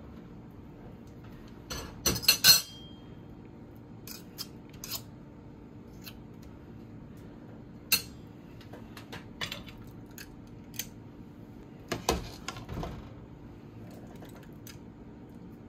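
Serving spoon clinking and scraping against dishes as mashed potatoes are scooped onto a plate, loudest in a quick cluster of clinks about two seconds in, with more single clinks around eight and twelve seconds. A low steady hum sits underneath.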